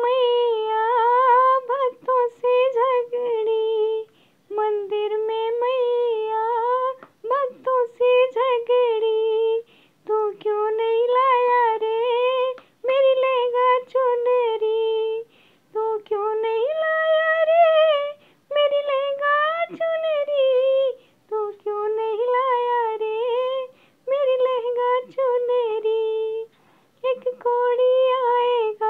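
A woman singing a short Hindu devotional song (bhajan) solo, without accompaniment, in held, gliding phrases broken by short pauses for breath.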